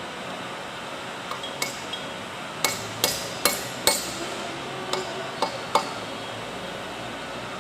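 Hammer strikes on metal while turbine blades are fitted to a turbocharger rotor shaft: about ten sharp, ringing taps at an uneven pace, the loudest a cluster of four near the middle, over a steady background hum.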